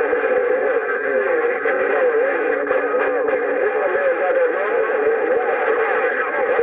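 Radio receiver audio from an HR 2510 transceiver: warbling, garbled signals of distant stations over static, with a steady low tone during the first three and a half seconds.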